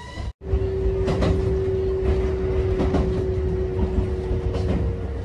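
Kintetsu electric local train running on the line, heard from inside the car: a low rumble from the wheels and track under a steady motor whine, with a few faint rail-joint clacks. A brief dropout comes about half a second in.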